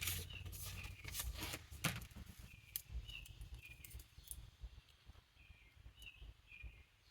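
Faint bird chirps in the background, short high calls coming every second or so. In the first two seconds they sit under soft clicks and rustles of paper and washi tape being handled.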